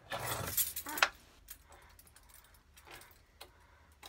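A bunch of keys jangling in a small child's hands for about a second, ending in a sharp click, then a few faint clicks.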